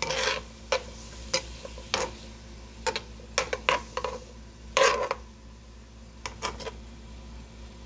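A utensil stirring diced peppers and onions in a nonstick skillet, with irregular scrapes and taps against the pan, the loudest about five seconds in. Under it, a faint sizzle of the vegetables sautéing in butter.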